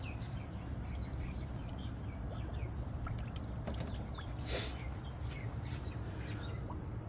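Small birds chirping in short, falling notes over a steady low rumble, with one brief hiss about four and a half seconds in.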